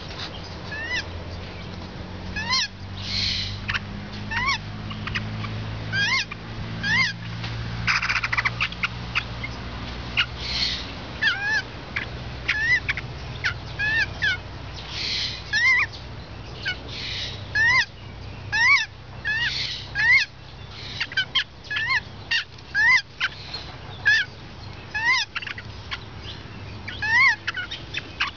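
White-crested laughingthrush chicks calling: a run of short, sharp chirps that rise and fall, several a second, with longer raspy, hissing calls every few seconds. A low steady hum runs underneath, stronger in the first half.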